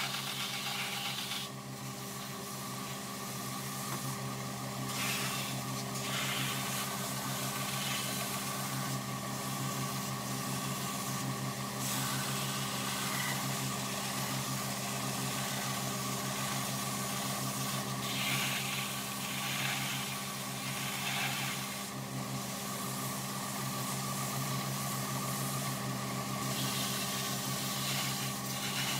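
Belt grinder running with a steady motor hum, and a hissing rasp each time the edge of a thin sheath piece is pressed against the sanding belt, several times over, trimming the sheath's edge.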